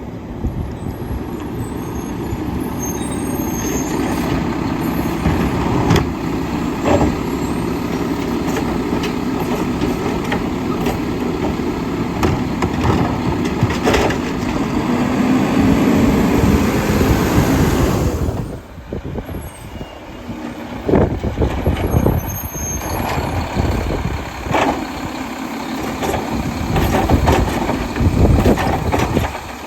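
Mack LEU side-loader garbage truck's engine running and revving as it works, building up toward a peak and dropping off sharply about two-thirds of the way through. Scattered knocks and clanks follow, with wind rumbling on the microphone.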